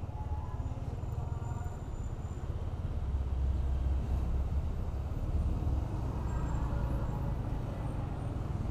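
Motor scooter riding at low speed, its engine and the ride making a steady low rumble that grows louder about three seconds in as it pulls out onto the road.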